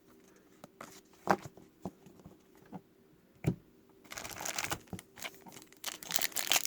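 A few light clicks of trading cards being handled, then from about four seconds in a run of crinkling and rustling from a trading-card pack wrapper being worked open.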